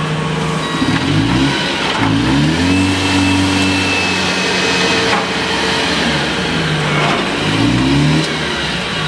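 Komatsu 25 propane-fuelled forklift's engine running and revving up in pitch about a second in, again at two seconds, and once more just before the end.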